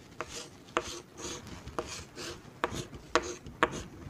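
Chalk on a chalkboard drawing a hexagon: a series of sharp taps, about one every half second, with short scraping strokes between them.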